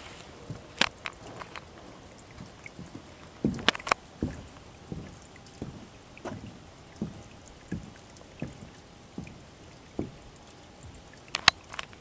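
A small creek flowing faintly, with short low plops about every three-quarters of a second through the middle and a few sharp clicks near the start and the end.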